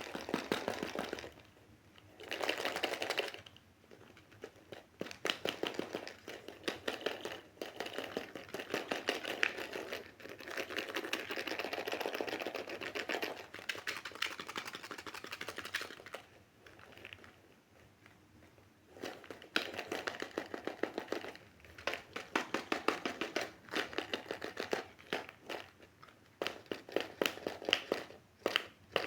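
Packaging of a surprise egg crinkling and rustling as it is handled and torn open, close to the microphone. It comes in stretches of rapid crackling with short pauses, the longest pause about two-thirds of the way in.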